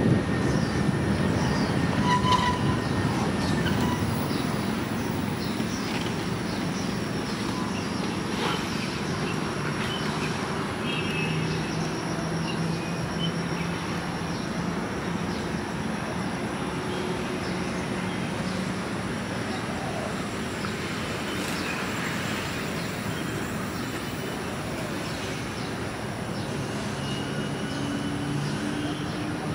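Steady rumble and hiss of a car driving slowly along a city street, mostly tyre and engine noise, louder over the first few seconds and then level.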